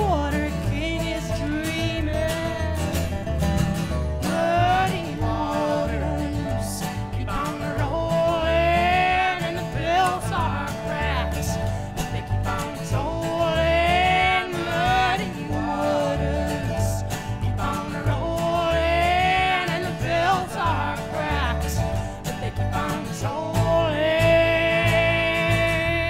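Live acoustic string band playing: acoustic guitars and upright bass under long, wavering held melody notes, with singing.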